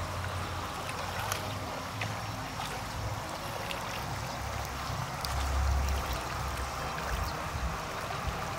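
Open-air ambience by a wide river: a steady wash of water-like noise over an uneven low rumble that swells about five seconds in.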